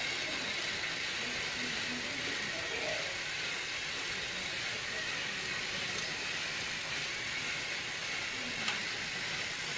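A steady hiss, even throughout, with only faint, indistinct sounds beneath it.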